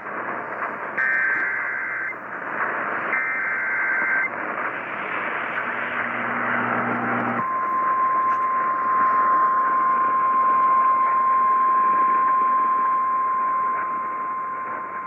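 Emergency Alert System SAME header data: two one-second bursts of rapid two-tone warbling about a second apart, received over radio with heavy hiss. After a few seconds of static, the steady single-pitch 1050 Hz NOAA Weather Radio alert tone starts about seven seconds in and holds, announcing a National Weather Service warning.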